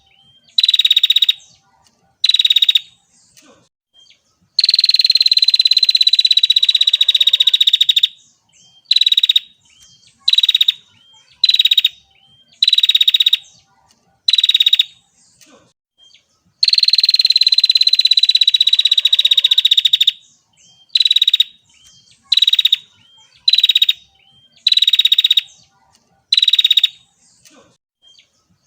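Female prenjak (prinia) calling: a string of short, fast buzzy trills about a second apart, with two long trills of three to four seconds, one about four seconds in and one about seventeen seconds in, each sliding slightly down in pitch.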